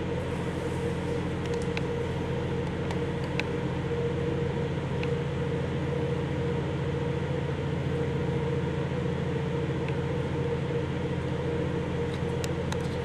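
Steady machine hum, like a fan or ventilation unit running, with a few faint clicks.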